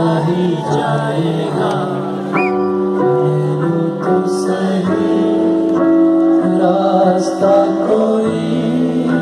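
A live band playing a pop-rock song, with long held melody notes over changing chords; a singer's voice comes in near the end.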